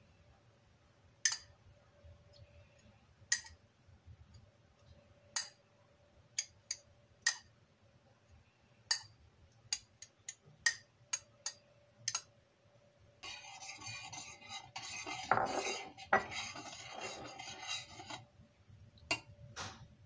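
A metal spoon clinks sharply against a ceramic bowl, about a dozen separate taps, as yogurt starter is stirred. About 13 s in come several seconds of denser scraping and sloshing as the yogurt is stirred into warm milk in a stainless steel pot, then two more clinks near the end. A faint steady hum runs underneath.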